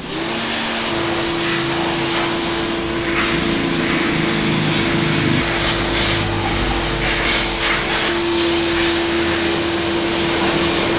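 Electric pressure washer running, its motor humming steadily under the hiss of the water jet spraying the motorcycle's rear wheel and underside to rinse off degreaser. It starts abruptly, and the motor's hum shifts pitch slightly a couple of times.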